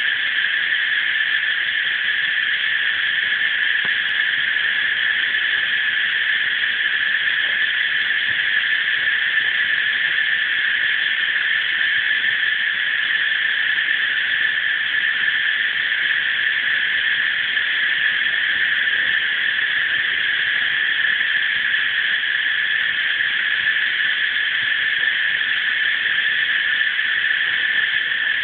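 Cicadas in a dense chorus: a continuous, shrill, steady buzz that neither rises nor falls.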